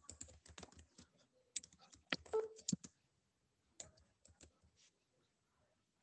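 Computer keyboard keys typed in quick runs of clicks, three short bursts of typing with brief pauses between them.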